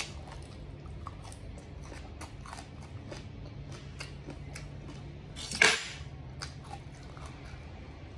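Close-up chewing of a crisp raw green leaf: many small crunches and wet mouth clicks, with one louder, sharper noise a little past halfway.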